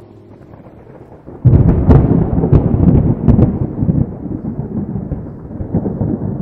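Thunder: a sudden loud crack about a second and a half in, several more sharp cracks over the next two seconds, then a long rolling rumble that slowly fades.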